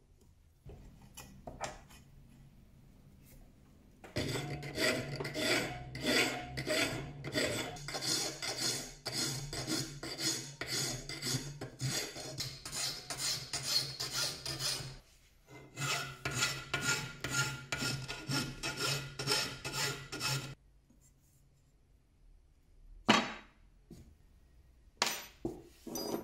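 Flat hand file scraping across the steel tang of a knife held in a bench vise, in a long run of quick back-and-forth strokes with a short break partway through. The strokes stop about twenty seconds in, and a few sharp knocks follow near the end.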